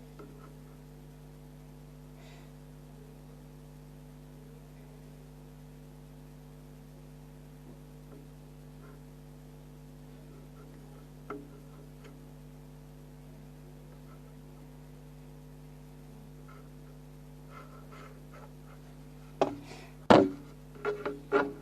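Steady electrical hum, with a single faint click partway through and a cluster of loud knocks and bumps near the end.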